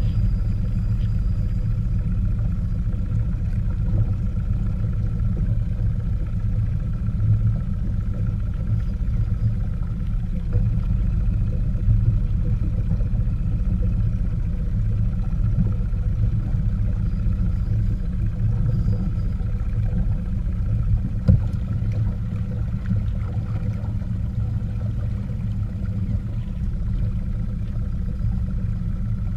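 Wind buffeting an action camera's built-in microphone: a steady low rumble, with a faint steady whine above it and a single knock about 21 seconds in.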